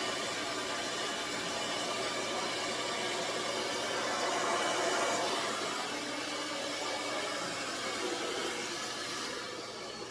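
Aria Beauty infrared ionic blow dryer running on its cool setting: a steady rush of air with a faint motor whine, louder about halfway through and quieter near the end.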